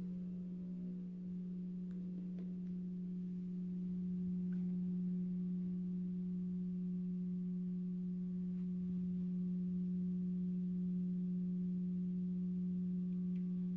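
Synthesized Thunderbolt 1000T siren, low-pitch setting, sounding a steady low tone through a karaoke machine speaker. Faint falling tones of other sirens fade out in the first second.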